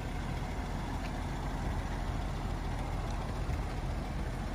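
Steady low background rumble of outdoor ambient noise, with no distinct events.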